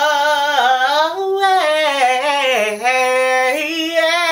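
A woman singing a slow praise song unaccompanied, drawing out one word over several long held notes that waver in pitch, stepping down and back up between them.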